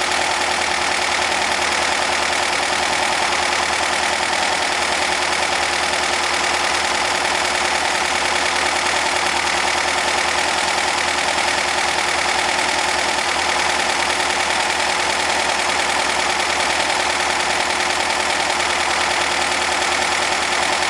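A 2.5-litre air-cooled VW Type 1 flat-four engine running steadily at a constant speed, with no revving.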